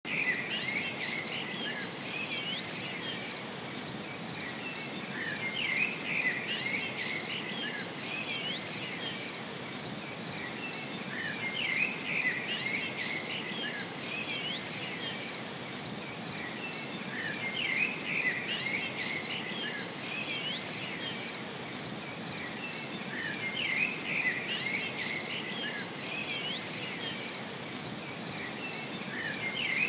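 Nature ambience: a cricket chirping in a steady pulse, with clusters of small-bird chirps and twitters over a soft hiss. The same pattern comes round again about every six seconds, as in a short loop.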